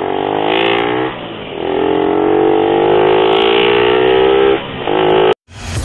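Motorcycle engine pulling away and accelerating, its pitch climbing, with two brief drops as it shifts up a gear. The sound cuts off suddenly near the end.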